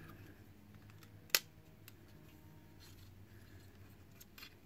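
Light clicks and ticks of a multimeter's plastic housing and circuit board being handled and worked loose by hand. There is one sharper click about a second and a half in and a few fainter ticks later.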